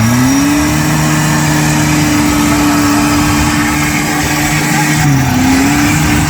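Off-road 4x4's engine revved up and held at high revs, with a brief dip about five seconds in before it picks up again.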